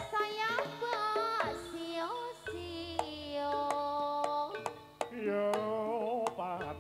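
Live East Javanese jaranan music: a wavering, bending melody line over sharp drum strokes.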